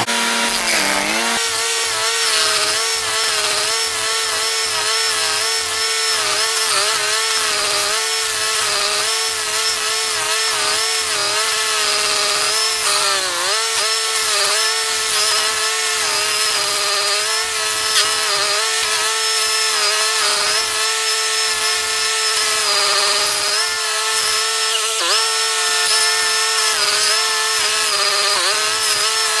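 Toro STX-38 stump grinder running steadily while its cutter wheel grinds into a tree stump. The engine note sags and recovers briefly a few times as the wheel bites and loads the engine.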